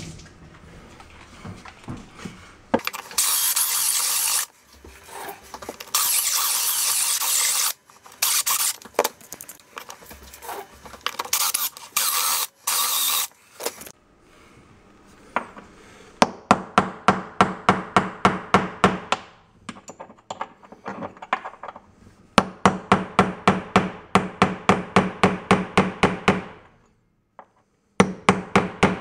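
Hand grout saw scraping out a grout joint between travertine tiles in strokes of one to two seconds. This gives way to rapid hammer taps on a metal tool held against the tile, about three to four a second in two runs with a short pause, to break the tile out.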